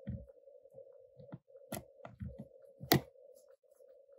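Small clicks and light knocks of a precision screwdriver turning a screw in a phone's metal shield plate, the loudest a sharp click about three seconds in, over a steady hum.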